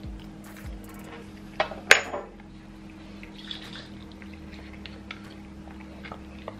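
A metal fork clinks sharply against tableware about two seconds in, with a brief high ring, amid small clicks and rustles of a meal being handled from a foil packet. A steady low hum runs underneath.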